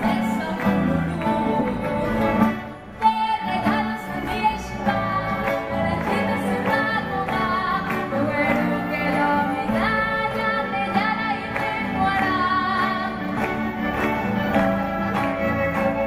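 Youth string orchestra of violins, violas and cellos playing a piece, with a female voice singing over it; the music breaks off briefly about three seconds in and then carries on.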